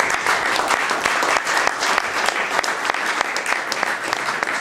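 Audience and panel applauding: steady, dense clapping from many hands.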